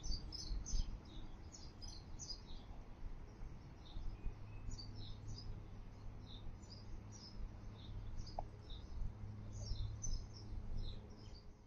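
Small birds chirping: many short, high chirps in quick runs, over a low steady hum.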